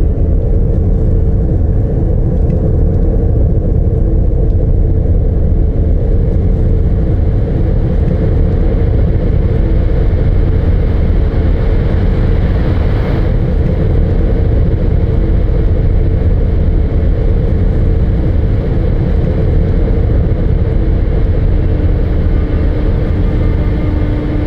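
A loud, steady low rumble, with faint held tones above it and a brief rush of noise about halfway through.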